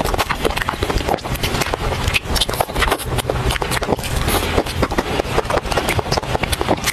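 Close-miked chewing and lip-smacking of soft cream sponge cake: a dense, uneven run of quick sticky mouth clicks.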